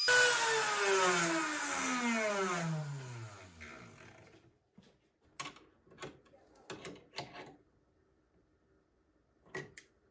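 Desktop CNC mill spindle switched off and coasting down, its whine falling steadily in pitch and fading over about four seconds. Then several short clicks and knocks, and one more near the end.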